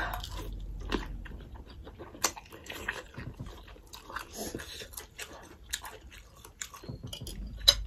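Close-up eating sounds: chewing of pork momo dumplings and soup, with many small wet mouth clicks and smacks scattered irregularly.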